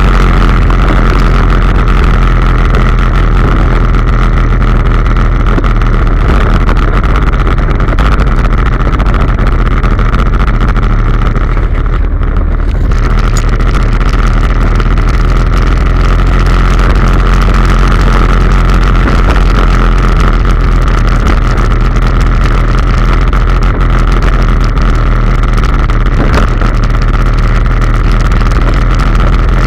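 Loncin XWolf 700 ATV's engine running steadily while riding downhill, with a heavy low rumble and a steady whine over it. It eases off briefly about twelve seconds in.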